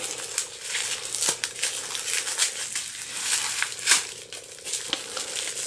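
Plastic wrapping crinkling and crackling as it is handled and pulled off a small diecast car, with many small crackles throughout.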